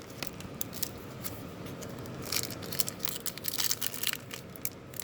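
Trading card pack wrappers crinkling and tearing as baseball card packs are ripped open and handled, a string of short sharp crackles.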